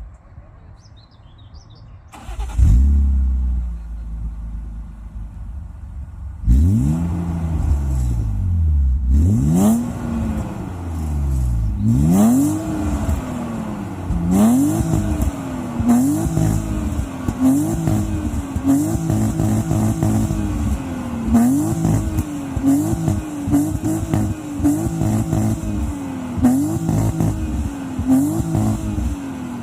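BMW E39 528i's straight-six engine being revved repeatedly. The sound rises sharply about two seconds in and settles for a few seconds. Then the throttle is blipped over and over, each rev climbing and falling back, the revs coming about once a second in the second half.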